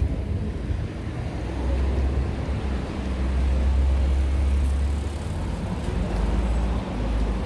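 Low rumble of a passing vehicle that swells for a few seconds and then eases off, with a faint high thin whine in the middle.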